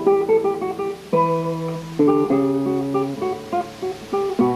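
Background music on a plucked guitar: single notes and chords picked and left to ring, with new chords struck about a second in, at two seconds and near the end.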